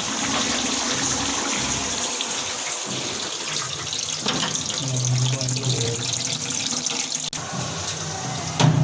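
Water running steadily into a toilet flush tank through its fill valve as it refills just after being flushed. A knock near the end.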